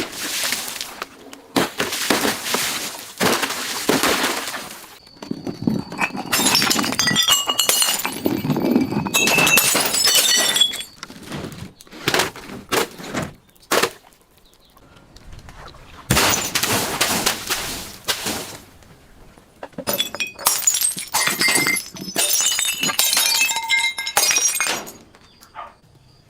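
Glass bottles being crushed and broken: repeated spells of crunching and cracking glass, with shards tinkling and clinking, and short pauses between them.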